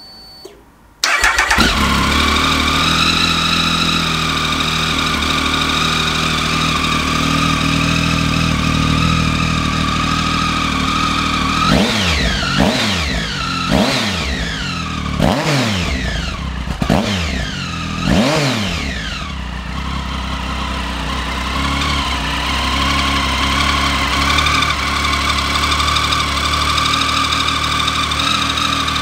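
Triumph Speed Triple 1050's three-cylinder engine firing up about a second in and idling through aftermarket Arrow silencers. In the middle it is blipped about five times in quick succession, each rev rising sharply and falling back, then it settles back to a steady idle.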